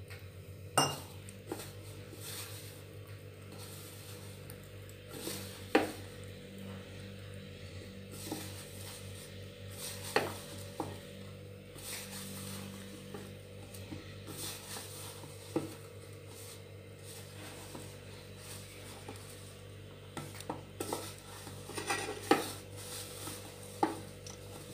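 Hands mixing and kneading wheat-flour dough in a stainless steel bowl, with a few sharp clinks of steel vessels against each other and the counter, over a steady low hum.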